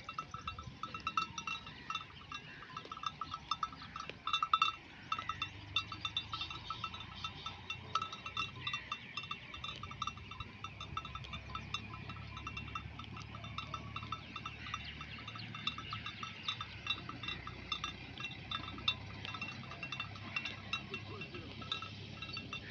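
Bells on a grazing flock of fat-tailed dumba sheep, clinking and clanking continuously as the animals move. The strikes come many times a second and overlap without a pause.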